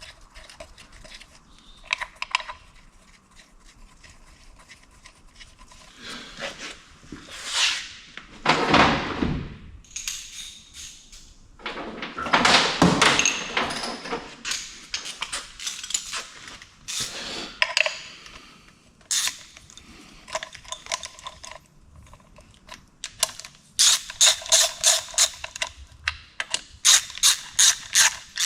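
Socket ratchet clicking as the cylinder-head bolts of a 1989 Daihatsu Charade engine are run down, in quick runs of even clicks near the end, with scraping and handling noises of tools and parts before that.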